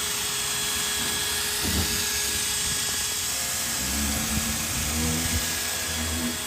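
Steady whirring hiss of machinery running in a machine shop, with a few thin constant tones through it.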